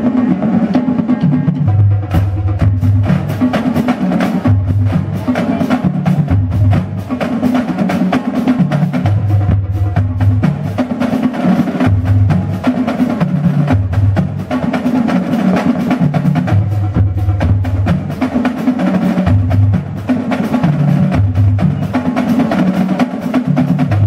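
Marching drumline playing a cadence: snare drums, tenor drums, tuned bass drums and cymbals. Dense, rapid snare strokes run over bass drum notes that step between different pitches.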